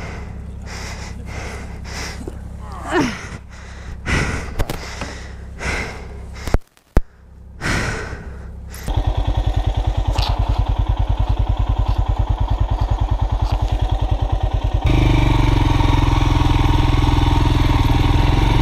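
Royal Enfield Himalayan's single-cylinder engine idling while the rider breathes and gasps, then, after a brief dropout about seven seconds in, the bike moving off with the engine's fast, even firing pulse. About six seconds later it steps up louder, with more rushing noise.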